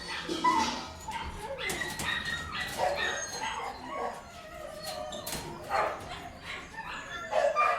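Many dogs barking, yipping and whining at once in an echoing indoor kennel, the barks overlapping in a continuous din.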